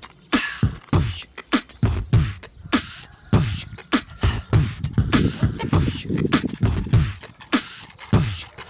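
Background music: a drum beat of deep kick drums and sharp snare and hi-hat hits in a steady rhythm.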